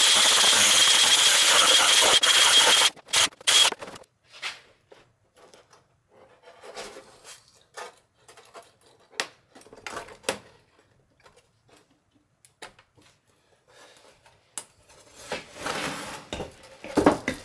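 Handheld rotary grinder cutting through the plastic housing of a Starlink dish: a loud grinding noise with a steady high whine that cuts off abruptly about three seconds in. After it come scattered faint clicks and scrapes of the cut plastic top being handled and lifted off.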